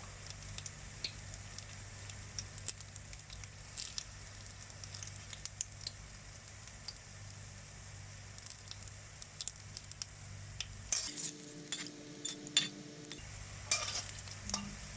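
Banana fritters deep-frying in hot oil: a light, steady sizzle with scattered crackles, over a low hum. A few louder clicks and clinks, like a utensil against the pan, come near the end.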